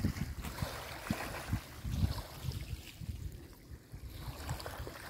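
Wind buffeting the microphone in irregular low gusts, stronger in the first couple of seconds, with small waves lapping at the shoreline underneath.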